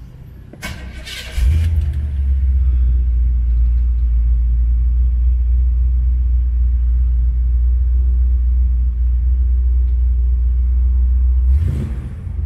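A crate 350 cubic-inch small-block V8 with dual exhaust being started: a brief crank, then it catches about a second and a half in and settles into a steady, deep idle rumble. Near the end a short rush of noise briefly breaks into the idle.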